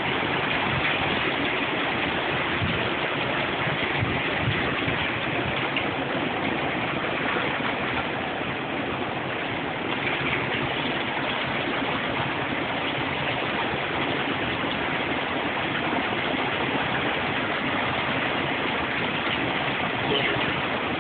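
Strong hurricane wind blowing over the microphone together with heavy surf breaking, a steady loud rush of noise.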